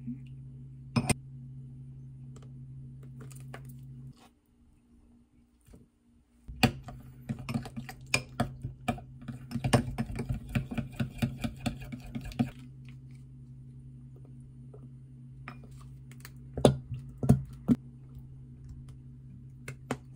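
Quick, light clicking and tapping that runs for about six seconds from around a third of the way in, with a few more taps later, over a steady low hum.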